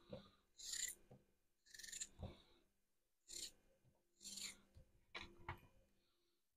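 A kitchen knife slicing through a raw peeled potato held in the hand: about four short, crisp scraping cuts roughly a second apart, with soft knocks in between.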